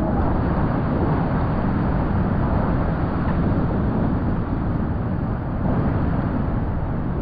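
Steady rushing of big whitewater rapids and falls, an even noise with no breaks.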